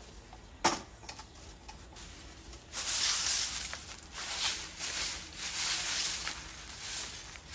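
A metal stool knocks once as it is set down, under a second in. From about three seconds in, a straw broom sweeps a tiled floor in repeated hissy swishes, about one or two strokes a second.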